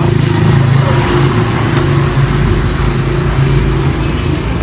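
Motorcycle engine running steadily close by, easing off slightly near the end.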